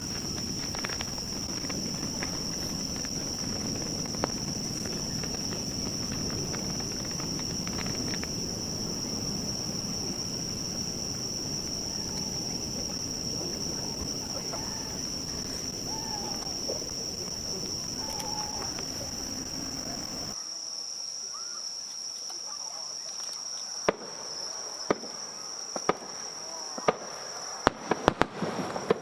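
Insects singing in one steady high trill over a low murmur of a crowd. About 20 seconds in the murmur drops away, and from about 24 seconds sharp pops and bangs of fireworks start, coming more often near the end.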